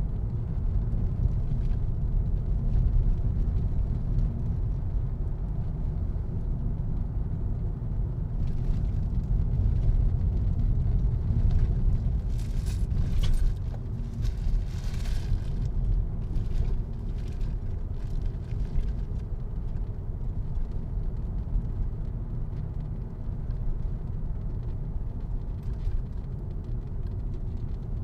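Car driving: a steady low rumble of engine and road noise, with a few brief hissing swishes around the middle.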